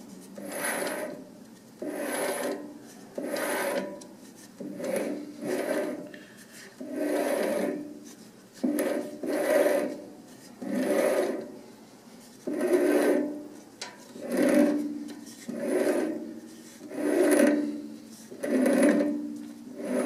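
Single-point lathe threading tool cutting an internal thread in a brass cap, with the lathe turned by hand: a rasping scrape that swells and fades about every second and a half. The tool is still in the cut and not yet into the relief groove.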